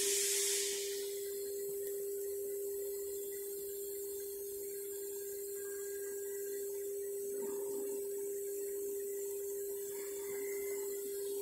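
CNC router spindle motor running at 24,000 rpm without cutting, a steady high whine.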